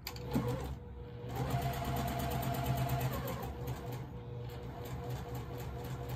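Electric sewing machine stitching through layers of quilting cotton, its needle going in a fast even rhythm. It starts, stops briefly about a second in, then runs steadily.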